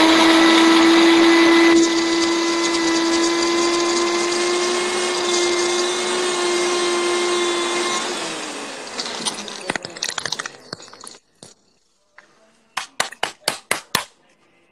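Electric blender running steadily as it churns shallow-fried brown onions into a paste, then switched off about eight seconds in and spinning down. Near the end comes a quick run of about seven sharp knocks.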